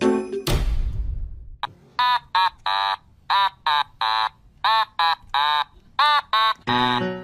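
A young kitten mewing over and over: about a dozen short, high-pitched cries, some rising and falling in pitch, after a brief burst of noise.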